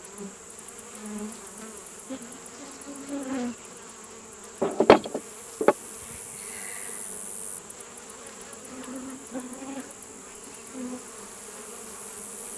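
Agitated honey bees buzzing around the hive and close past the microphone, individual bees' buzzes rising and falling as they fly by; the colony is stirred up and defensive after being disturbed. A few sharp knocks sound about five seconds in.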